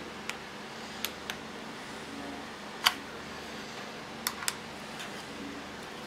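Short sharp plastic clicks and taps of USB plugs and connectors being handled and pushed into a USB tester, about seven in all, the loudest about halfway through, over a steady faint hum.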